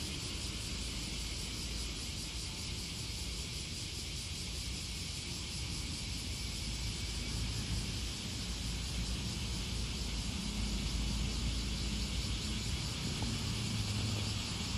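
Steady outdoor background noise: a low rumble that grows louder in the last few seconds, under an even high hiss.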